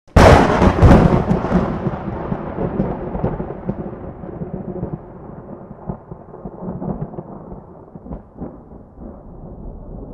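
Thunder: a sudden loud crash followed by a long rolling rumble that slowly fades, with a few sharp cracks along the way.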